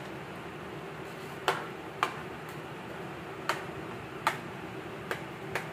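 Metal ladle knocking against a frying pan while a stew is stirred: about six sharp, irregularly spaced clicks over a steady low hum.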